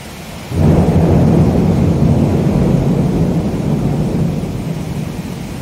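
Thunder rumbling in a heavy rainstorm: a loud low rumble breaks in suddenly about half a second in and slowly fades, over the steady noise of rain and wind.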